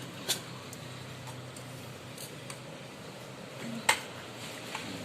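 A few scattered sharp clicks and taps, the loudest just before four seconds in: a hard disk being handled and worked out of its screwless docking bracket inside an all-in-one PC.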